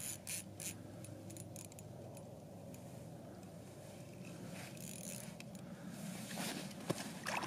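Faint clicking and rattling of a small ice-fishing reel as line is wound in against a hooked trout. The clicks come irregularly and grow busier near the end.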